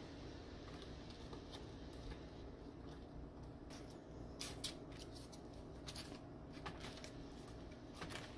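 Faint, scattered crackles and clicks of dry tortilla chip scoops and parchment paper being handled on a baking tray, with a few sharper clicks in the second half, over a low steady hum.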